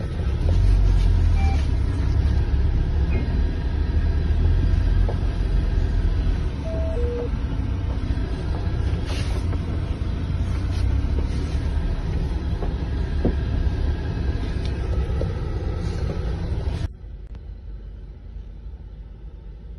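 A car's engine and road noise heard from inside the cabin while driving: a steady low rumble that suddenly drops much quieter about three-quarters of the way through.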